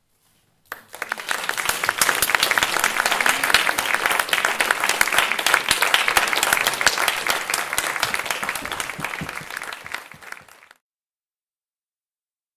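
Audience applauding, starting about a second in and cutting off suddenly shortly before the end.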